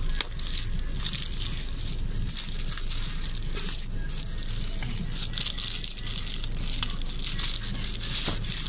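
Plastic courier mailer bag, wrapped in clear tape, crinkling and rustling in irregular bursts as it is squeezed and pulled at to open it, over a steady low hum.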